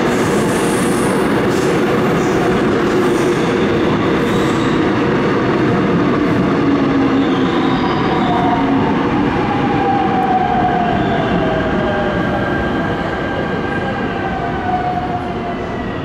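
Seoul Subway Line 5 electric train pulling out of the station: wheels running on the rails, with the traction motors whining and gliding in pitch as it gathers speed. The noise eases off over the last few seconds as the last car clears the platform.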